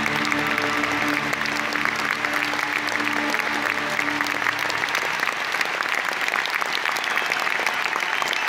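Large concert audience applauding, a dense steady clatter of clapping. A held final chord from the orchestra and band sounds under it for the first half and then stops, leaving only the applause.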